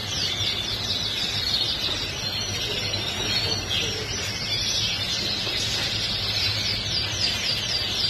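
Many caged canaries and other songbirds singing at once: a dense, continuous twitter of quick, high chirping notes, over a steady low hum.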